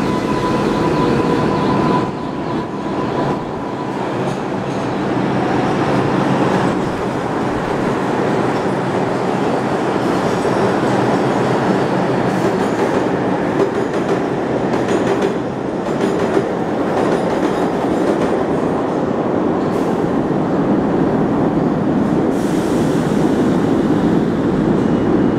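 R142A subway train pulling out of an underground station, its cars rumbling and rattling along the rails with some clickety-clack. A steady high whine from the train in the first two seconds stops about two seconds in.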